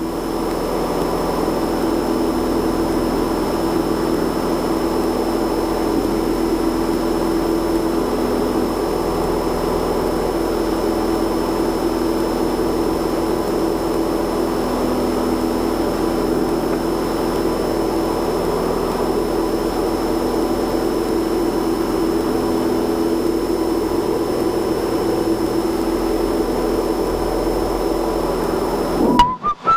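Steady drone of the Cozy III's pusher engine and propeller in flight, a constant hum with a fixed tone that does not change. It cuts off suddenly just before the end.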